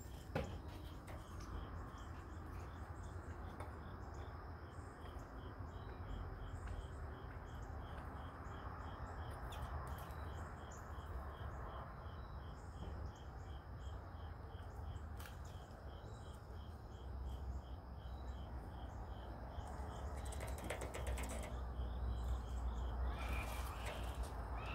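Insect chirping in an even rhythm, about three short pulses a second, over a low steady rumble. A few brief rustles come near the end.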